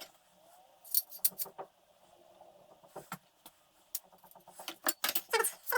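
Small metal hardware and tools clinking and jangling as they are handled: a scattered series of sharp clinks, thickening into a run of ringing metallic clanks near the end.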